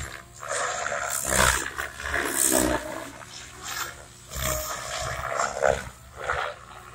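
SAB 700-size radio-controlled helicopter in flight, its main rotor and drive coming and going in loud swells of whooshing roar with a shifting pitched whine, about four times as it swoops and turns.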